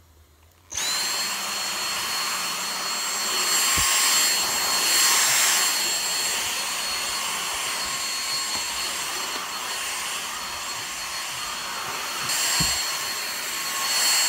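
Vacuum cleaner switched on about a second in, then running steadily with a high motor whine.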